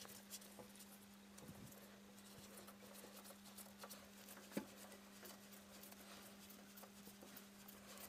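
Near silence with a steady low hum and faint scattered clicks of the plastic cap and drain hose of a washing machine's emergency drain being handled, with one sharper click about four and a half seconds in.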